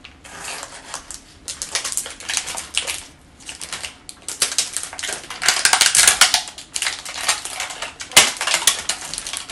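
Clear plastic orchid sleeve crinkling and crackling as it is handled, in uneven bursts that are loudest about halfway through, with one sharp knock near the end.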